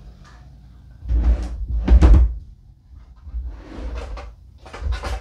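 Rustling and knocking as quilted fabric pieces are handled on a wooden work table: three bursts, the loudest about a second in and lasting over a second, two smaller ones near the end.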